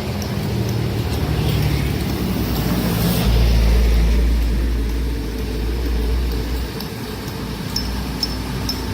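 Heavy diesel engine of a large excavator running. A deep low rumble swells about three seconds in and eases off a few seconds later, with a few light clicks near the end.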